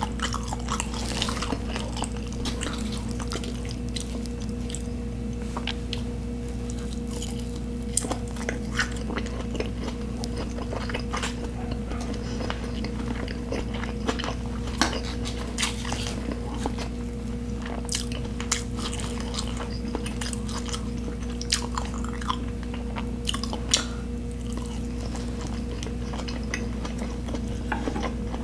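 Close-miked chewing and biting of food, with many short wet clicks and smacks scattered throughout, over a steady low hum.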